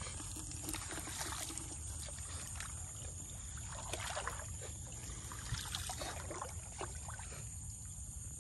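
Shallow water sloshing and splashing as a person wades and works his hands around a woven bamboo fish trap. Scattered short splashes and rustles of wet grass run through it.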